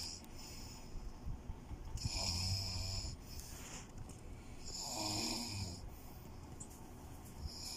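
Heavy, snore-like breathing: two rasping breaths about three seconds apart, each lasting about a second.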